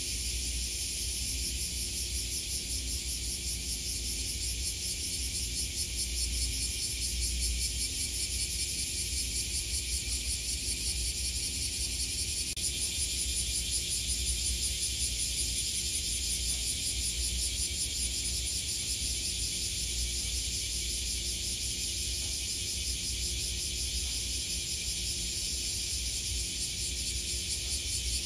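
A steady chorus of cicadas buzzing, a dense high pulsing drone, over a low rumble of wind on the microphone and a faint low hum.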